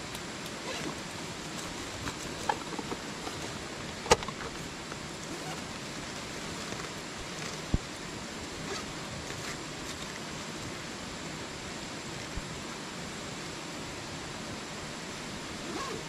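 Steady rushing of a jungle river and its waterfalls, with a few sharp knocks, the loudest about four seconds in and another near eight seconds.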